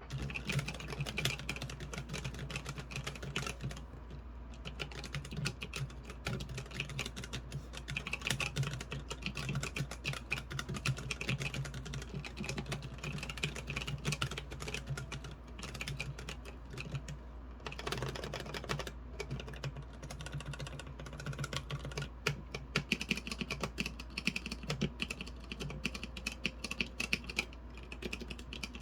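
Typing on a 3D-printed Corne split keyboard: a continuous, fast stream of key clicks, with short pauses about four seconds in and just past the middle.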